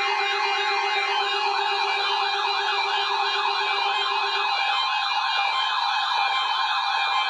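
Several siren-like tones overlapping, each warbling quickly up and down, with a steady lower tone underneath that stops a little past halfway.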